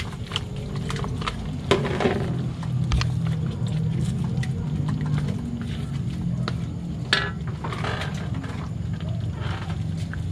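Cooking sounds at a pot of sauce: scattered clicks and knocks of a utensil against the pan, over a steady low hum.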